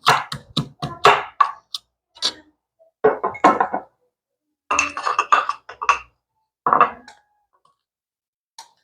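Kitchen items clinking and knocking against a glass jar: a quick run of sharp clicks, then three short clattering bursts.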